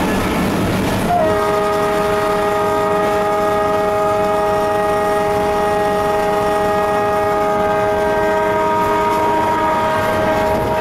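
Alco WDM3D diesel locomotive's air horn, heard from inside the cab, sounding one long continuous blast of several tones together, starting about a second in and held steady, over the rumble of the engine and wheels at speed.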